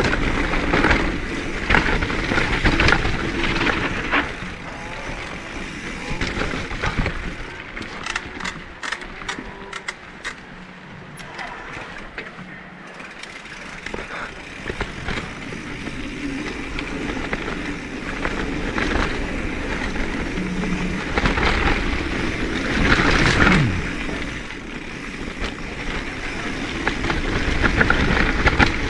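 Mountain bike riding a dirt trail, heard through a helmet-mounted GoPro Hero10: steady tyre and wind noise with scattered rattles and clicks, easing off for a few seconds about a third of the way in and swelling again later.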